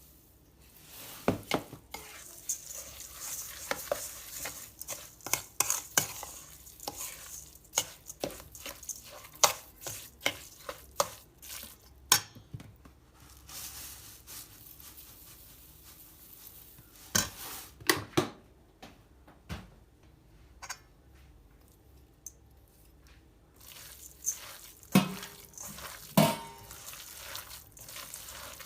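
Irregular clicks, taps and knocks of hard objects being handled, many in quick succession, with a faint hiss under the first half. The sound thins out for a few seconds in the middle, then comes back in short clusters.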